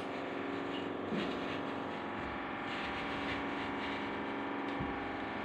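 Soft background music of sustained, held tones.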